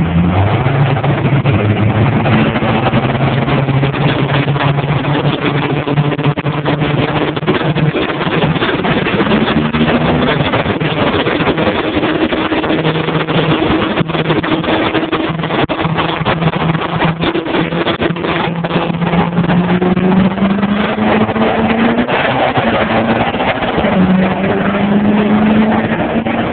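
Diesel pickup truck engine running loud and being revved, its pitch rising and falling several times.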